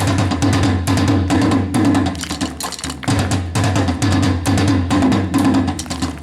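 Korean traditional percussion ensemble, drums (buk) among them, beating a fast, dense rhythm, with a short break about three seconds in.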